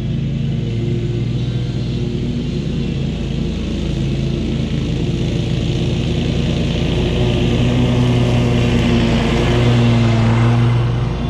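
SCAG V-Ride 2 stand-on commercial mower running steadily while mowing, growing somewhat louder in the second half.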